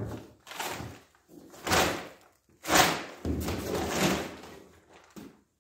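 Jobsite table saw and its folding metal stand being tipped and handled: a string of separate clunks, knocks and scrapes, with one longer scrape past the middle.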